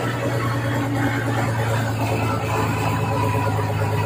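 River ferry's engine running steadily with a low, even hum.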